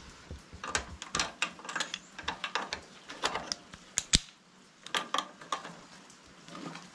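Hand tools working on metal motorcycle parts: irregular clicks and clinks, with one sharp knock about four seconds in.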